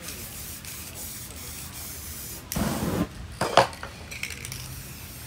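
Aerosol spray-paint can hissing as paint is sprayed onto a canvas. About halfway through comes a louder rush, then a single sharp knock, before a shorter hiss of spray near the end.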